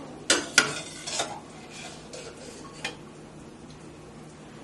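Metal skimmer clinking against a steel saucepan as blanched broccoli is scooped out of the boiling water: a few sharp clinks in the first second and one more near three seconds in, over a low steady hum.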